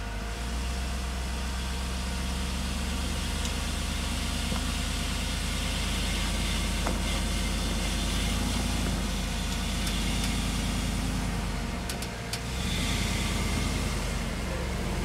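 Lifted Hummer H3's engine running at low revs as the truck crawls up a steep, rutted track. Late on the engine sound dips briefly and a few sharp clicks are heard.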